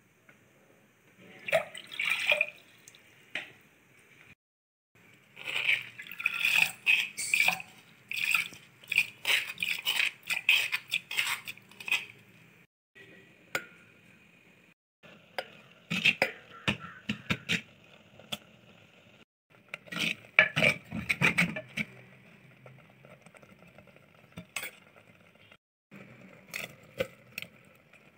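Kitchen cooking sounds across several short cut-together clips: water sloshing and dripping in a pot, and a spoon knocking and scraping against the pot in irregular clatter while the food is stirred.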